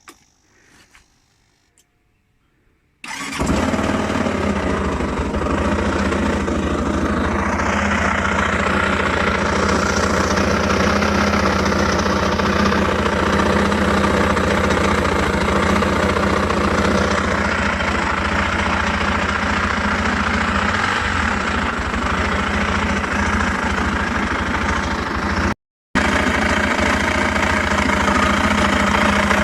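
Suzuki Address V125 scooter's single-cylinder four-stroke engine, bored up to 156cc, starting about three seconds in and then idling steadily. It carries an abnormal noise whose source the owner could not locate, though the engine starts and rides without trouble.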